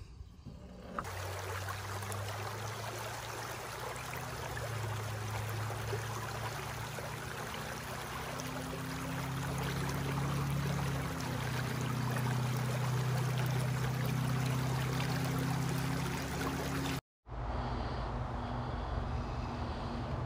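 Small rocky mountain stream running steadily over a shallow riffle. The sound breaks off for an instant about seventeen seconds in and comes back a little softer.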